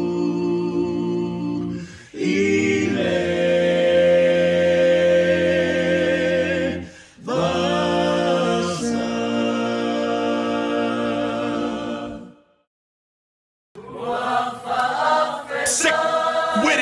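A cappella choir singing slow, long-held notes, with two brief breaks and about a second of silence three-quarters of the way through before the voices come back in.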